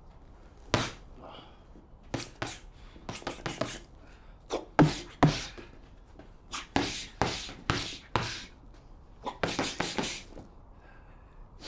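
Fists in hand wraps punching a heavy leather punching bag: single thuds and quick flurries of blows in an uneven rhythm.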